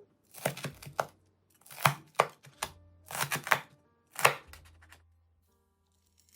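Crispy deep-fried king oyster mushroom pieces crunching and crackling in about five short bursts, dying away about four and a half seconds in.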